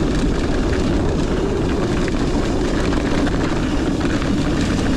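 Loud, steady wind rumble buffeting a GoPro Hero 9's microphones during a fast mountain-bike run, with wind reduction off. The top and front mics are covered by a furry wind muff but the side port is left open, which is why the wind still gets through.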